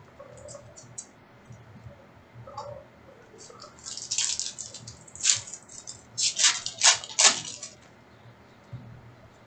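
Trading-card packs and cards being handled: a run of crinkling, rustling bursts from about three and a half to eight seconds in.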